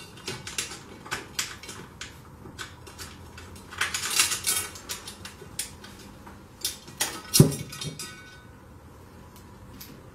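Metal clinking, scraping and knocking as a steel battery hold-down bracket is handled on top of truck batteries in a sheet-metal battery box, with a busier run of clinks about four seconds in and one louder knock about seven seconds in.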